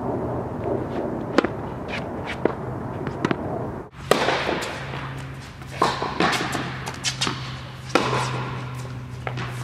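Tennis rally: sharp pops of racket strings striking the ball and the ball bouncing on a hard court. After a cut about four seconds in, the hits echo in an indoor tennis hall over a steady low hum.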